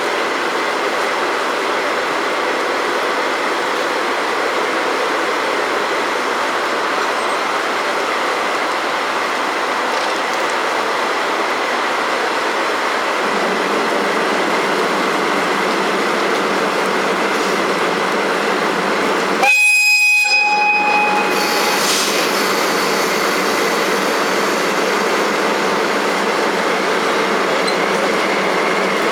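Hokutosei sleeper express train running, with steady rail and wheel noise. About two-thirds of the way through, the locomotive gives one short horn blast.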